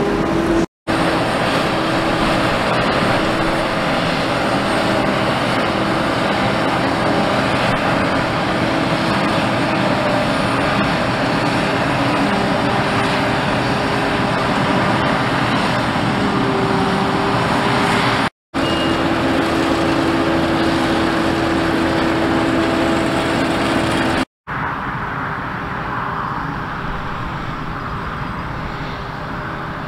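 Claas Jaguar 860 forage harvester and a New Holland T7 tractor running steadily under load while chopping maize into a trailer. The sound breaks off briefly three times, and over the last few seconds it is quieter and slowly fading.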